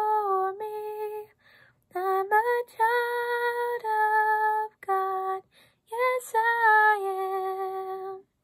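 A woman's solo voice singing a worship song unaccompanied, in long held notes with short breaths between phrases. The singing stops near the end.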